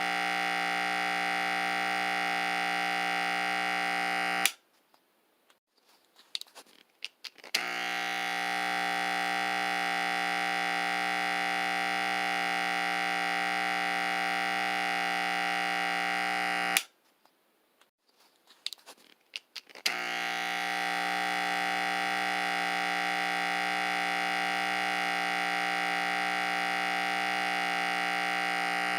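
Electric barber clippers buzzing steadily. They are switched off with a click about four seconds in, and a few small handling clicks follow. They click back on a few seconds later, go off again for about three seconds past the middle, then buzz to the end.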